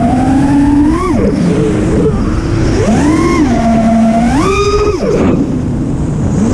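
Armattan Badger 5-inch FPV freestyle quadcopter, with iFlight Xing 2450kv motors on a 4S battery spinning HQProp Ethix S5 props, heard from its own onboard camera: the motors' whine climbs and drops sharply with the throttle. It falls away about a second in and again about five seconds in, and climbs again near the end, over rushing wind noise on the microphone.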